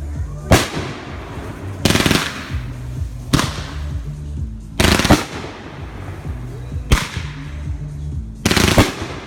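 Backyard consumer fireworks going off: six sharp bangs, about one every second and a half, some trailing a brief crackle. Music with a steady bass line plays underneath.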